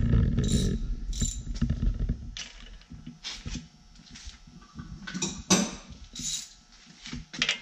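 Scattered metallic clinks and knocks of hand tools being handled on an engine, about half a dozen sharp ones after the first couple of seconds. A low rumble of handling noise comes first.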